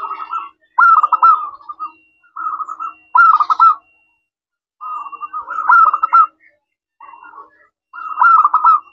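Zebra dove (perkutut) cooing: a run of about seven short, rapidly pulsed coo phrases, each under a second or so long, with brief pauses between them.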